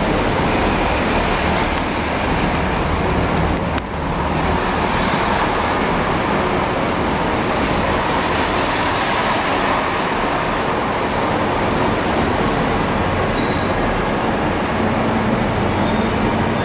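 Passenger train running past close beside the platform: a steady rush of wheel and engine noise, with a brief dip about four seconds in.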